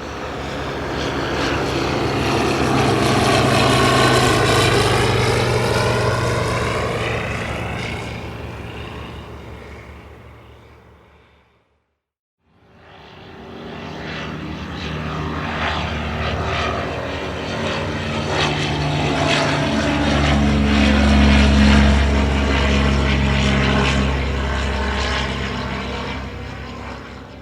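Propeller-driven light aircraft flying past twice. The first pass swells and fades with the sweeping pitch of a flyover; after a brief silence a second pass comes in with a steadier engine note, loudest about two thirds of the way through, then fades away.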